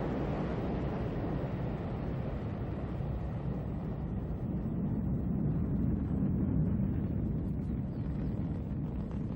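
Ariane 5 rocket climbing just after liftoff: a steady, deep rumble from its solid rocket boosters and main engine. The hiss at the top of the sound dulls gradually as the rocket climbs away.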